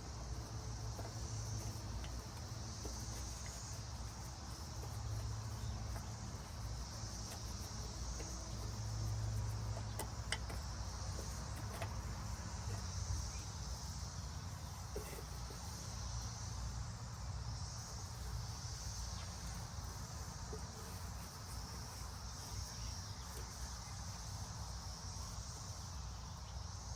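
Steady insect chorus, a high trill that swells and fades every few seconds, over a low steady rumble, with a few faint clicks.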